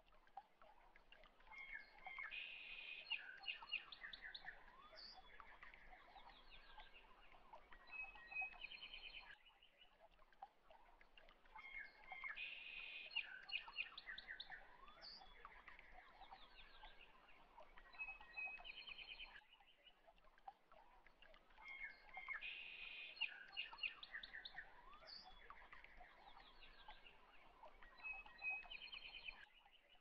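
Faint looped background track of birds chirping and twittering, the same stretch repeating about every ten seconds.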